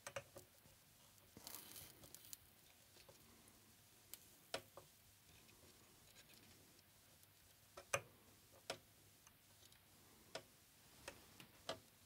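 Near silence with faint, irregular ticks and small pops from flux and solder spitting under a hot soldering iron as it heats a terminal post on the circuit board.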